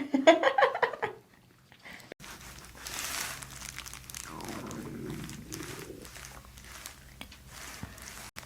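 Stomach growling: a loud, rapidly pulsing growl in the first second, then quieter rumbling and gurgling, with a low rumble that falls and then rises in pitch around the middle.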